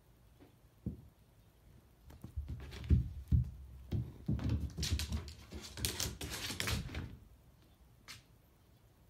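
A cat pouncing and scrambling on a rubber yoga mat over a wooden floor. There are two heavy thumps about three seconds in, then several seconds of paws scuffling and rustling, and one short scratch near the end.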